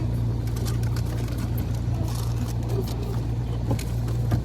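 Steady low drone of a car's engine and road noise, heard from inside the cabin, with a few faint clicks.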